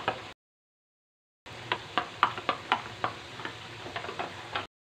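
Metal spatula stirring sauce in a stainless steel wok, clicking against the pan about three to four times a second over a soft sizzle. The sound drops out completely for about a second near the start.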